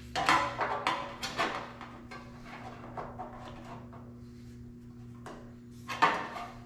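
Thin sheet-steel patch panel being worked and handled by hand: a quick run of knocks and clatter in the first second and a half, a lighter knock about three seconds in, and a sharp knock near the end.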